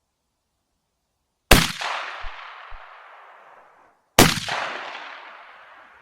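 Beydora BDR-90 shotgun fired twice, about two and a half seconds apart, each shot followed by a long echo that fades away over about two seconds.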